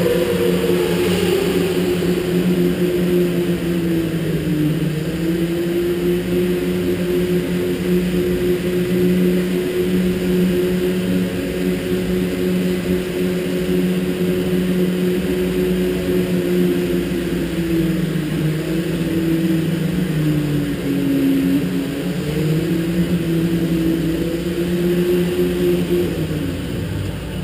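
Electric go-kart's motor whining under way, its pitch mostly steady, dipping a few times and falling away near the end.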